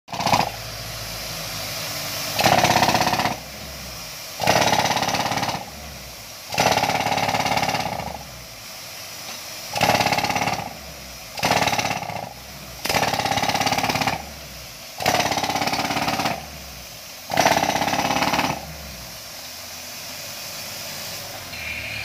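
A 90-pound pneumatic jackhammer, air-fed through a hose, hammering into gravelly ground in about nine short bursts of a second or so each. A steady drone carries on between the bursts.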